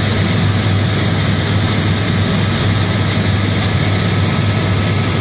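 Helicopter in flight heard from inside the cabin: a loud, steady drone of engine and rotor noise with a strong low hum.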